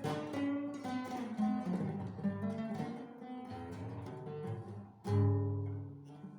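Acoustic guitar playing a piece of plucked notes, ending about five seconds in on a loud low chord that rings out and fades.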